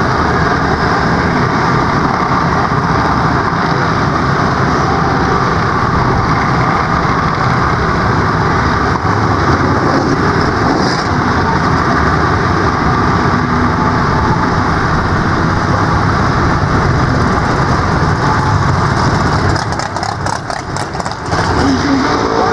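Junior dragsters' small single-cylinder engines running steadily at the starting line. The noise dips for a moment about twenty seconds in, then comes back.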